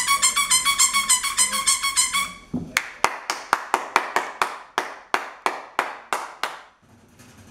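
Handheld noisemakers sounded in quick succession. First comes a shrill horn-like tone that pulses several times a second and stops about two seconds in. Then about fifteen sharp clacks follow at three or four a second for some four seconds, each with a short ring.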